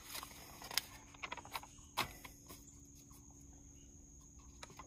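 Paper pages of an instruction manual being flipped and handled on a truck bed: a few brief rustles and taps in the first two seconds, over a faint steady high-pitched hum.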